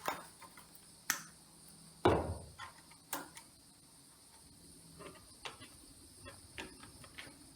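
Side cutters snipping the ends of 12-gauge copper wires to an even length: three sharp snips about a second apart, the middle one loudest, followed by a few fainter clicks.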